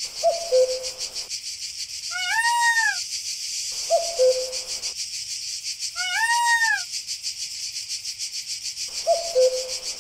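Animal calls over a steady, pulsing high hiss: an arching cry, rising then falling, twice, and a short lower chirp three times, repeating as if looped.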